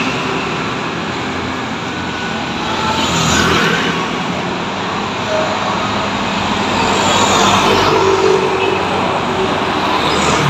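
Street traffic at an intersection: motor scooters and cars passing, with a city bus going by near the end. A steady rush of engines and tyres that swells as vehicles pass.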